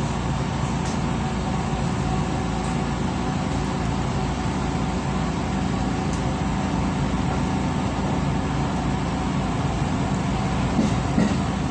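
Steady running hum of a JR West 223-series electric train heard from inside, behind the driver's cab, with several fixed electrical tones over the noise. Two small knocks come near the end.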